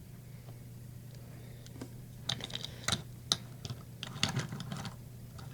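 Light clicks and taps of a small Matchbox toy crane being handled, its plastic boom being moved. The clicks are scattered from about two seconds in and bunch together near the end, over a low steady hum.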